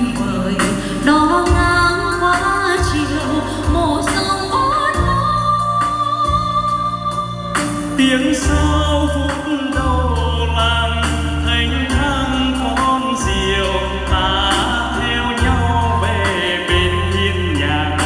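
A Vietnamese song sung into microphones over an instrumental backing with sustained bass notes, amplified through a hall's sound system.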